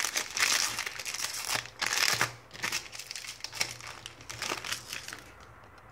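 Foil wrapper of a football trading-card pack crinkling as it is torn open by hand and the cards are pulled out; the rustling dies away shortly before the end.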